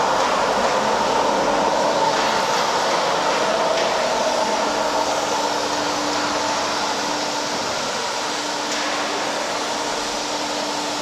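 Closed water cooling tower running steadily, its fan and circulating pump giving a continuous whooshing hum with a faint low tone underneath.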